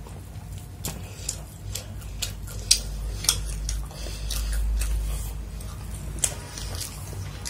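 Close-miked eating: irregular sharp, wet clicks and smacks of chewing, and a hand mixing and scooping chicken fried rice on a plate. A low steady hum runs underneath.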